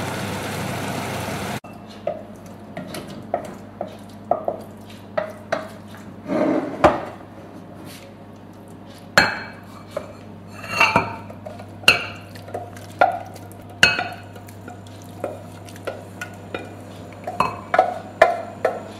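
A spoon scraping and knocking against a stainless steel pot as stewed cabbage is spooned out into a glass bowl: a run of irregular clinks, taps and scrapes. A steady noise stops suddenly about one and a half seconds in.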